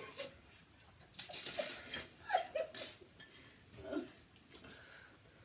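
Noodles slurped and air sucked in sharply through the mouth in two noisy bursts, with short strained vocal sounds in between: people eating very hot spicy noodles.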